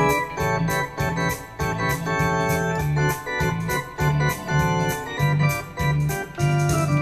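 Yamaha PSR-S670 digital arranger keyboard playing an organ voice: held chords over a bass line that pulses in a steady rhythm.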